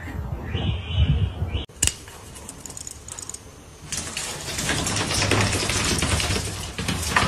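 A kitten's claws skittering and scrabbling on a tile floor: a dense run of rapid clicks that starts about four seconds in.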